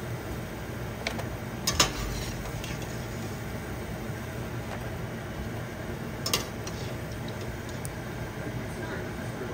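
Kitchen utensils knocking and clinking against pots or dishes a few times, the sharpest knock just under two seconds in and another about six seconds in, over a steady background hiss.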